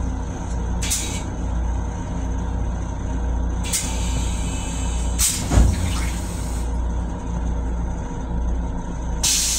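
Steady low rumble of a Long Island Rail Road M7 railcar, heard inside its restroom. Short hisses of air come about a second in, about four seconds in and near the end, and a longer hiss with a low thud comes about halfway.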